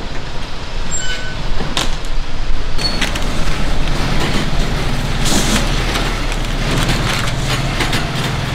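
Steady traffic and street noise with a low engine hum, with crinkling of plastic wrap and paper being handled, strongest about halfway through.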